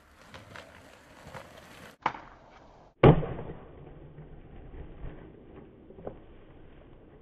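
Skateboard: wheels rolling on pavement, a sharp clack about two seconds in, then a much louder snap of the board about three seconds in, followed by the wheels rumbling over paving tiles and a lighter knock near the end.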